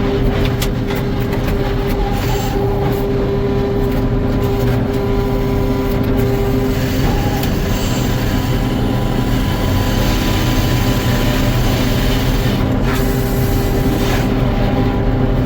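Carriage sawmill machinery running steadily, a loud continuous drone with a whining tone that drops out about halfway through and comes back near the end.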